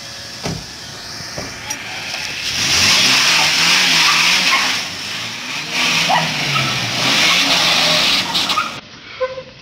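Police SUV accelerating away with its engine revving and loud tyre noise for several seconds. The sound drops off suddenly near the end.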